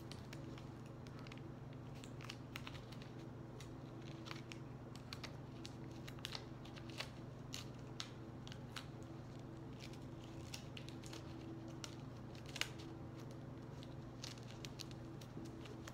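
Faint crinkling and small scattered clicks of paper and sticky tape being handled and pressed around a small paper craft, over a steady low hum.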